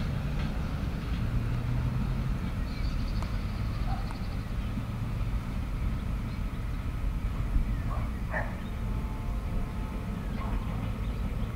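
Freight train wagons rolling past: a steady low rumble of wheels on the rails.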